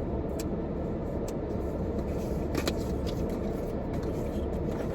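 Steady low rumble of a car cabin, with a few faint clicks of a product container being handled.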